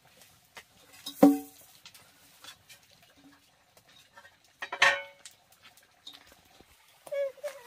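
Metal cooking pot and lid clanking twice, each knock ringing briefly, the first the loudest. Near the end an animal's call begins.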